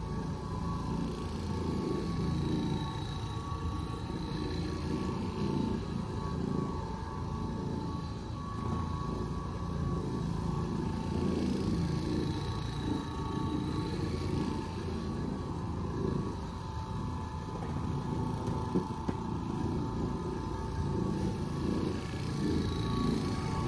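Oreck Orbiter orbital floor machine running steadily as its pad scrubs the carpet in very low moisture cleaning: a constant motor hum over a low rumble.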